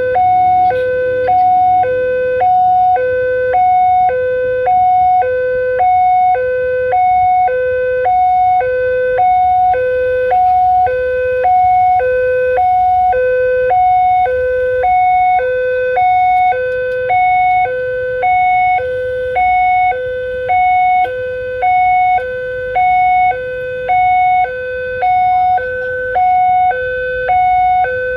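Indonesian railway level-crossing warning siren sounding its fast electronic two-tone alarm, a low and a high note alternating about once a second without a break. Under it is the low rumble of a passenger train passing over the crossing.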